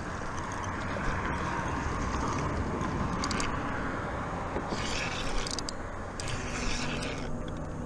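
Steady low background rumble, with scattered scrapes and clicks of a fishing rod and reel being handled, most of them around the middle.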